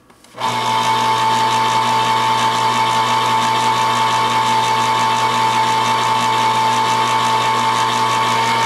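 Electric can opener's motor running steadily as it turns a can of green beans against the cutter, an even hum with a high steady whine. It starts about half a second in.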